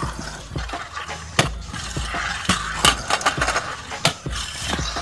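Stunt scooter riding on a concrete skatepark ramp: wheels rolling with a run of sharp clacks and knocks of the deck and wheels hitting the concrete, the loudest about a second and a half in, near three seconds and about four seconds in.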